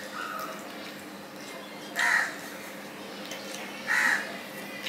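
A crow cawing twice, about two seconds apart, each call short and harsh.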